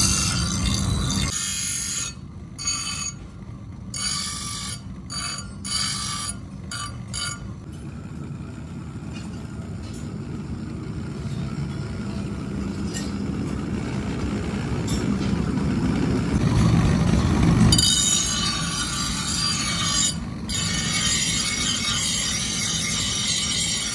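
Bench grinder's abrasive wheel grinding a leaf-spring steel knife blade, a harsh grinding hiss. It comes and goes at first, drops to the grinder's running hum in the middle, and starts again for the last several seconds.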